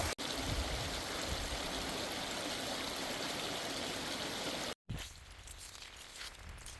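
Meltwater flowing down a trail that has turned into a stream, a steady rush of running water. It breaks off abruptly a little before five seconds in, and only a much quieter background follows.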